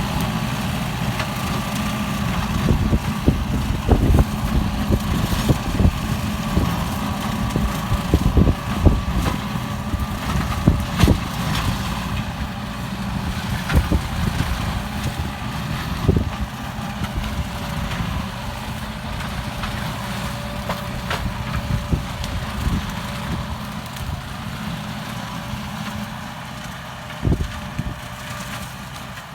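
Kubota M9540 tractor's diesel engine running steadily, with irregular knocks and crunches over it. The sound slowly grows quieter near the end.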